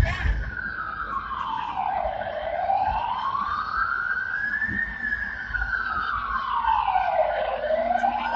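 Emergency-vehicle siren on a slow wail, its pitch rising and falling in long sweeps of about five seconds each, dropping to its lowest about two seconds in and again near the end.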